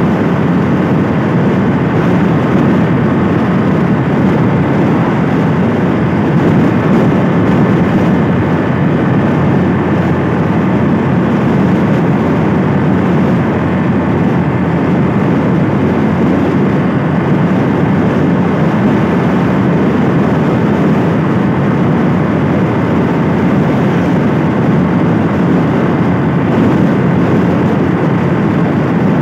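Motor scooter riding along a road: a steady rush of wind and road noise with the engine running evenly underneath.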